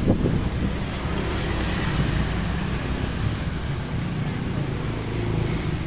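A fuel-injected engine running steadily during a tune-up, with an even low hum and a faint high steady whine above it.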